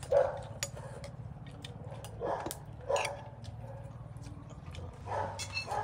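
A dog yipping and whining in short bursts, about four times, over faint clicks.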